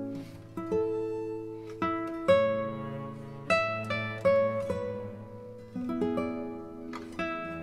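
Acoustic guitar music: plucked notes and chords, each one ringing out and fading before the next.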